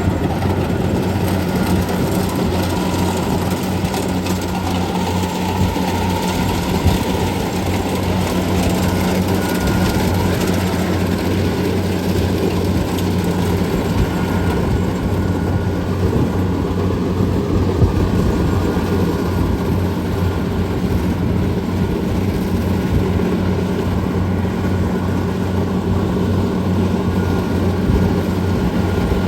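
Kubota DC688Q rice combine harvester's diesel engine running steadily, a constant hum over a wide noisy wash from the machine, while it cuts rice.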